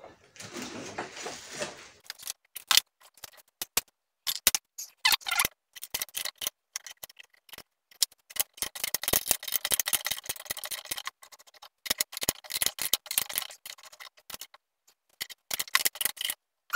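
Ratchet wrench clicking in quick runs as it turns a threaded crankshaft installer tool, drawing the crankcase halves of a Honda CR250R two-stroke engine together without hammering. A short scraping comes first, then the clicking runs on with brief pauses.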